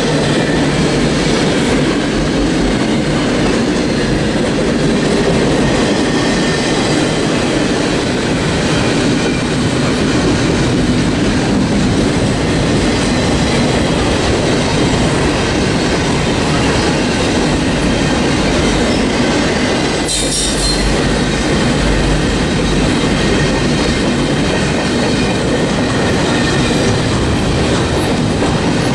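Double-stack container train's well cars rolling past close by: a steady, loud noise of steel wheels running on the rails and the cars rattling.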